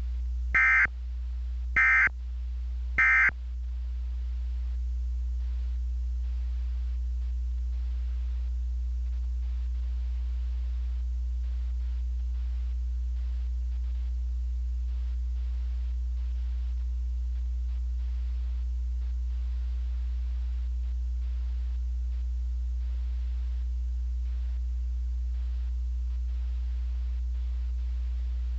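Emergency Alert System SAME end-of-message data bursts: three short warbling digital bursts about a second apart, signalling the end of the alert. They are followed by a steady low hum with no speech.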